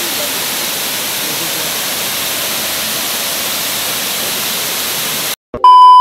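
Steady rush of a waterfall, a dense even hiss of falling water. Near the end it cuts off suddenly, and after a short gap a loud steady beep starts: the test tone that goes with TV colour bars.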